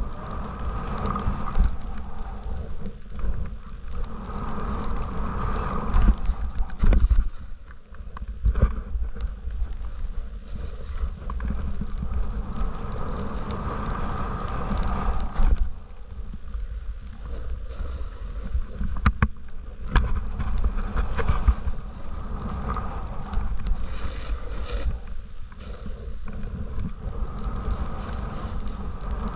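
Snowboard sliding and carving over snow, its edges scraping, with wind buffeting the camera microphone. The noise swells and eases with each turn, loudest about six to seven seconds in.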